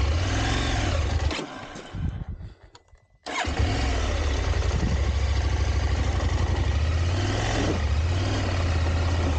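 Motorcycle engine running under way, with wind and road noise. The sound fades out about a second and a half in and cuts back in sharply about three seconds in, then runs steadily.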